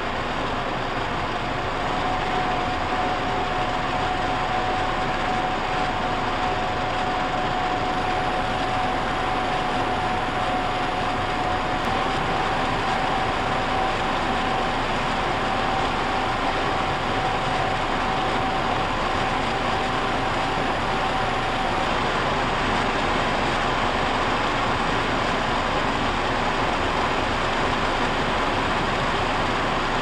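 Paseco PWA-3300 window air conditioner running in fan-only mode with the compressor off: a steady rush of blown air that grows slightly as the fan speed is stepped up. A thin steady whine sits in the noise and stops about twenty-two seconds in.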